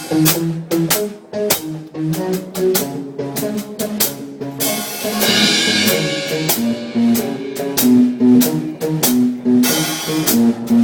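Band playing during a sound check: drum kit keeping a steady beat under bass and guitar notes, with a cymbal wash about halfway through.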